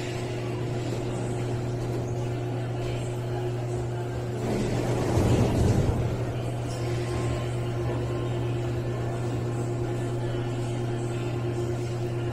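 Mexico City Metro train standing at an underground platform, with a steady low hum and a fainter steady tone above it. About four and a half seconds in, a louder rushing swell rises and fades over a second or so.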